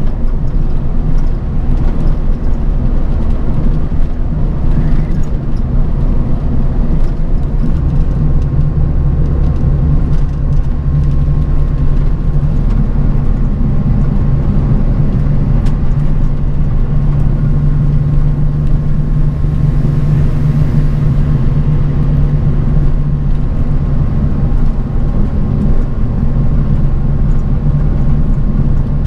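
Bus travelling on the road, heard from inside the cabin: a steady low engine drone and road rumble with a faint steady whine above it.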